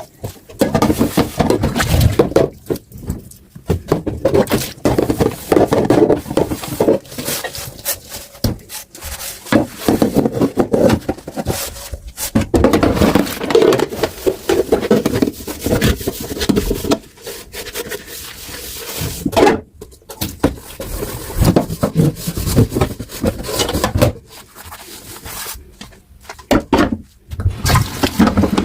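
Dishes being handled and scrubbed by hand: irregular rubbing and scraping with knocks and clatters, broken by short pauses.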